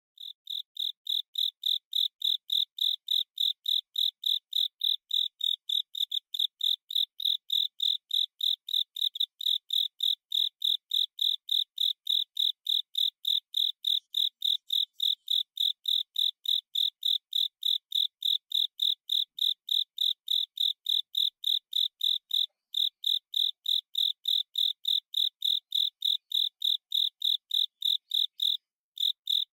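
Male Velarifictorus micado cricket singing: an even, steady series of short high chirps, about three a second, with a brief break about three-quarters of the way through and another near the end.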